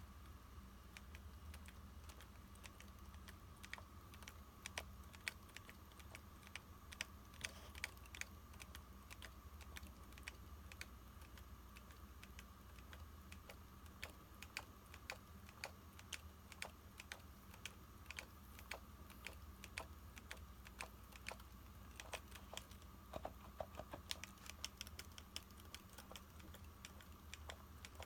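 Panasonic Lumix G9 camera body rattling as it is moved: irregular light clicks and ticks, several a second, some louder than others.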